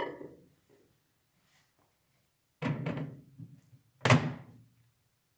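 A few knocks and clatters, then a microwave oven door swung shut with a sharp thunk about four seconds in, the loudest sound.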